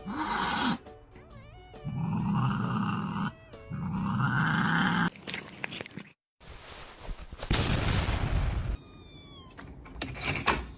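Cats growling and yowling in a string of short clips, with music over parts of it; the sound changes sharply at each cut.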